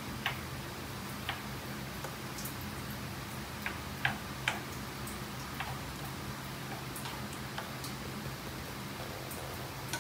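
Spatula and metal utensil knocking and scraping against a frying pan while stir-frying meat and vegetables: irregular sharp clicks and taps, a cluster of them about four seconds in, over a faint steady hiss and a low hum.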